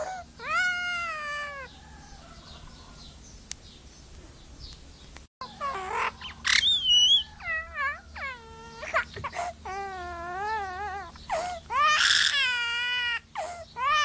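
A pet myna imitating a human baby's crying: wavering, wailing cries. After one cry at the start and a pause of a few seconds, a dense run of cries follows, with a few higher whistled notes mixed in.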